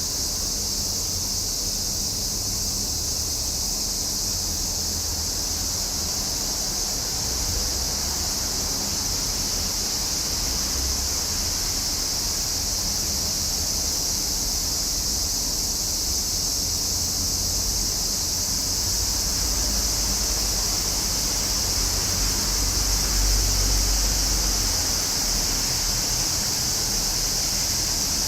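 A chorus of cicadas shrilling in summer: a steady, unbroken high-pitched drone, with a low rumble underneath that swells a little near the end.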